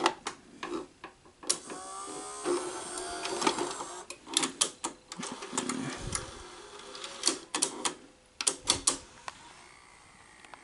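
NEC VC-N20EU Betamax VCR loading and threading a cassette: sharp clicks and clunks from its mechanism and front-panel buttons, with a motor whine that rises in pitch about two seconds in and a steady mechanical whirr under it.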